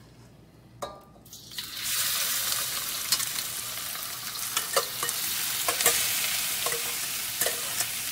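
Marinated ground beef and chopped onion dropping into a hot oiled wok: a loud sizzle bursts up about a second and a half in, then settles into steady frying hiss with scattered sharp pops and crackles.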